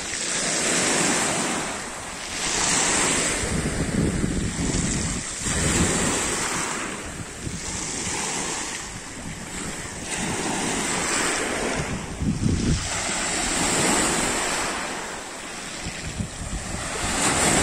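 Small waves breaking and washing up a pebble beach, the surf swelling and fading every few seconds. Wind gusts on the microphone add a low rumble at times.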